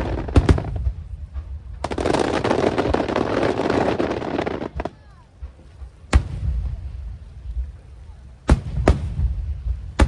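Aerial firework shells bursting: sharp bangs each followed by a low rolling echo, with a dense hissing, crackling stretch of about three seconds in the first half, then single bangs, two of them close together near the end.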